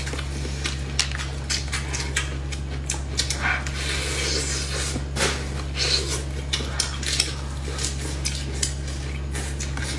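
Close-up eating of fatty braised pork ribs: wet chewing and lip smacks, with meat torn off the rib bones by plastic-gloved hands. It comes as an irregular run of short clicks and snaps over a steady low hum.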